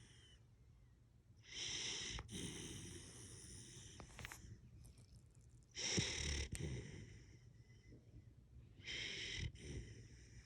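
Husky puppy snoring in its sleep: three hissy breaths, about every three to four seconds.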